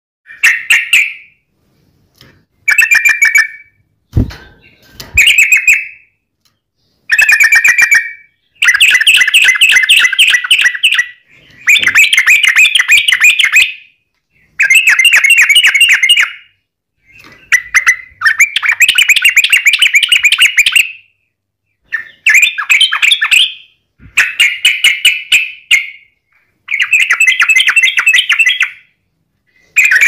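Yellow-vented bulbul (trucukan) singing its long rapid song: a run of fast, bubbly chattering phrases, each one to two seconds long, with short pauses between. The recording is loud enough to clip. Two low thumps come at about four and five seconds.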